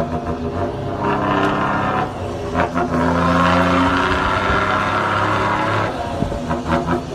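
Tractor-truck engine running through its newly fitted aftermarket exhaust, heard from inside the cab while driving. A steady drone dips briefly a few times, with short clicks in the gaps.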